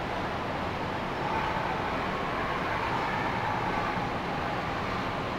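Sea waves washing steadily onto a beach, a continuous surf noise with a slight swell about a second in.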